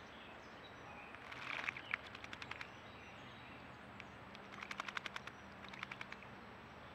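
Juvenile American robin bathing in a stone birdbath: three quick bouts of rapid splashing as it flutters in the water, the longest about a second and a half in, the others near the end.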